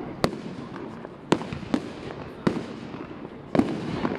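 Aerial firework shells bursting: about five sharp bangs at uneven intervals, over a steady background hiss.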